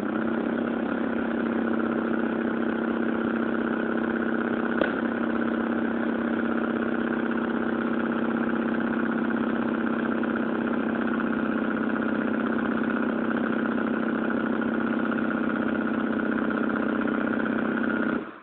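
Diesel-converted Homelite 25cc two-stroke weed-eater engine being spun over by a hand-held power tool in an attempt to start it: a steady, even-pitched motor whine that starts and stops abruptly, with a single click about five seconds in.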